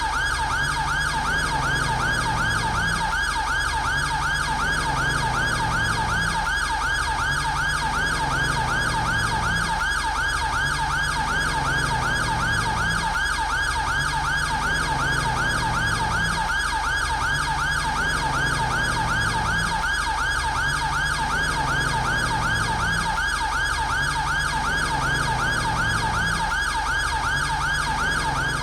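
British police car siren in yelp mode: a rapid, continuous up-and-down wail that repeats several times a second at a steady loudness.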